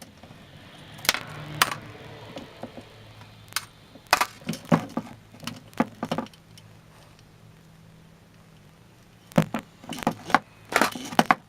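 Small metal parts of an old breast drill clicking and knocking against each other and the bench as it is taken apart, in scattered clusters of sharp clinks with short pauses between.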